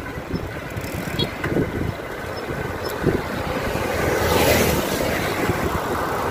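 Wind buffeting the microphone, with road noise, while riding a bicycle on the road. It swells louder about four to five seconds in.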